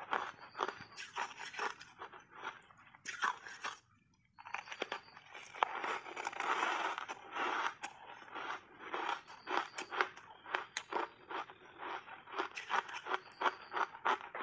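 Reshaped ice coated in matcha powder being bitten and chewed in big bites: rapid, sharp crunching of hard ice between the teeth. The crunching breaks off briefly about four seconds in, then resumes more densely.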